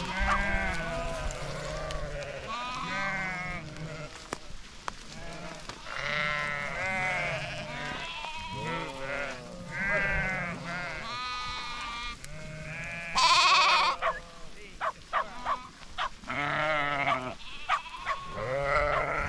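A flock of sheep bleating, many overlapping wavering calls near and far, with one loud close bleat about two-thirds of the way through.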